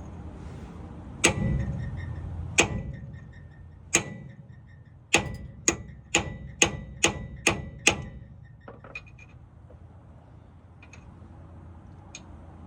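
Small hammer striking a steel extension against the differential cross shaft of a GM 10-bolt rear end, about ten sharp metallic taps with a ringing note. Three come spaced out, then seven come quickly at about two a second. The shaft does not move, held by the broken-off half of its lock bolt.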